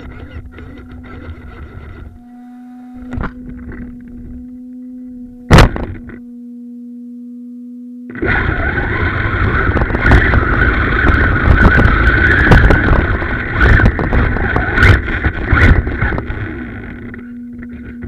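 Arrma Talion RC truggy with a steady low electric hum while it sits upside down, and one loud knock about five and a half seconds in. About eight seconds in it drives off: a loud high motor whine over tyre and gravel rumble with rattling, easing off near the end.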